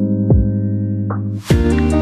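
Background music: sustained synth and keyboard chords with a pulsing note, turning brighter and busier about one and a half seconds in.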